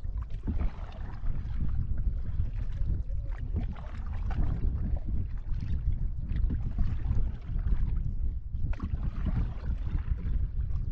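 Water splashing and sloshing around a moving canoe, with wind rumbling on the microphone.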